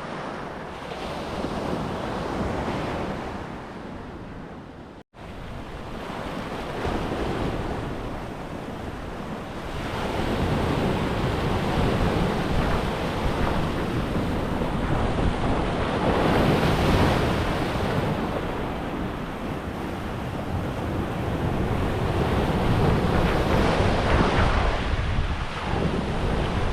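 Ocean surf breaking on a sandy beach, swelling and easing as the waves come in, with wind buffeting the microphone. There is a brief dropout about five seconds in.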